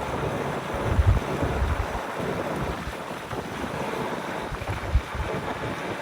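Wind buffeting the microphone, a dense rushing roar with heavy low thumps of gusts about a second in and again near five seconds.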